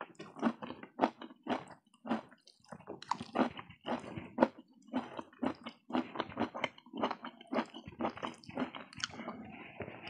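Close-up chewing with wet mouth smacks, a quick irregular run of short smacks and clicks, as a man eats noodles and rice.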